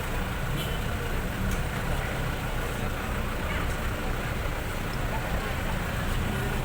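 Steady rumble of motor-vehicle engine and road traffic noise.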